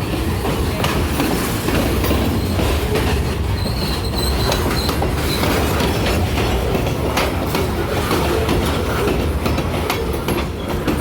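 Freight train cars rolling past at close range: a steady rumble with wheels clicking over the rail joints, and a faint high wheel squeal for a moment about four seconds in.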